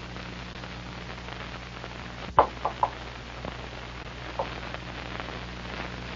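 Steady hiss, low hum and fine crackle of an old film soundtrack, with a sharp click about two and a half seconds in followed by a few short faint sounds.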